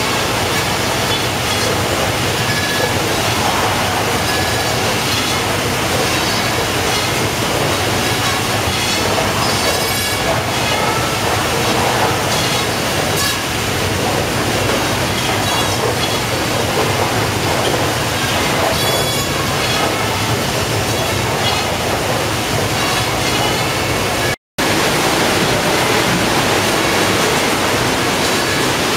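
Industrial fish-processing machinery running: a loud, steady mechanical din with repeated metallic squeals and clicking from the hand-fed processing machine and conveyors. About three-quarters of the way in the sound breaks off for a moment and comes back as a steadier rushing hiss.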